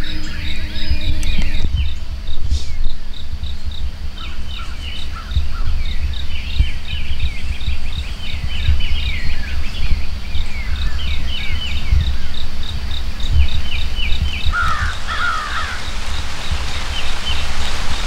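Songbirds chirping in a dawn chorus over a steady high insect trill that pulses about three to four times a second, with a louder bird call about fifteen seconds in. A low rumble with small bumps runs under it all.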